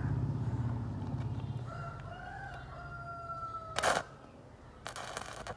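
A rooster crows once, one long call held on a steady pitch, over a low hum that fades out. It is followed by a short loud burst and then about half a second of crackling of the kind an electric arc welder makes when the arc is struck.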